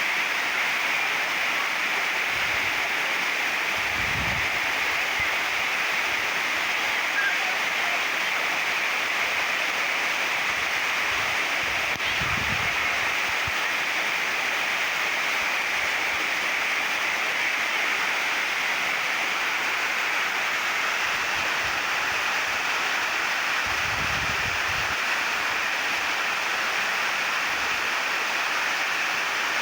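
Waterfall: steady rushing of falling water, an even hiss without breaks.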